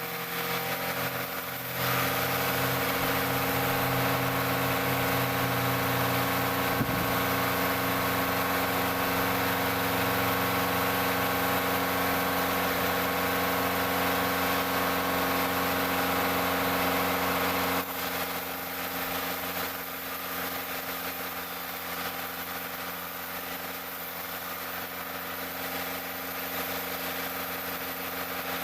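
Engine running steadily. It gets louder about two seconds in and drops back suddenly to a lower, steady running level about two-thirds of the way through.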